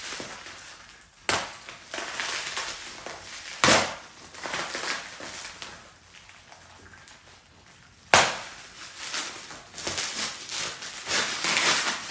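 Gift packaging being handled and opened by hand: crinkly rustling, with three sharp, loud crackles and a quieter pause in the middle.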